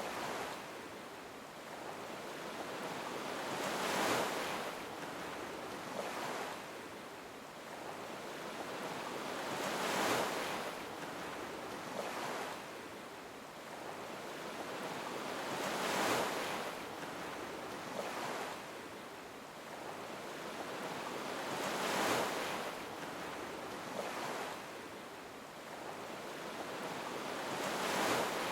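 Ocean waves washing in, each surge swelling and fading, about one every six seconds.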